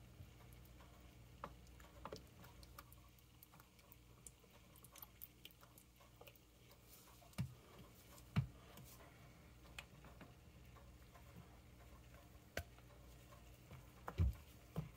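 Faint, irregular clicks, taps and squishes of a thin swirling tool and a spatula working thick cold-process soap batter in a silicone-lined loaf mould, with a couple of louder knocks about seven and eight seconds in and a cluster near the end as thick batter is spooned in. A low steady hum runs underneath.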